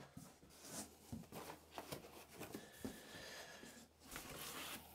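Faint handling of packaging: soft rustling and scattered light knocks as wrapping and cardboard are taken out of a box.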